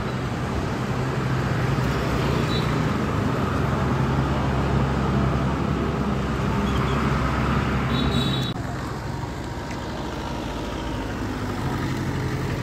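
Street traffic noise: a steady low engine hum from nearby motor vehicles over a general road hiss. It eases off about eight and a half seconds in, just after a brief high-pitched tone.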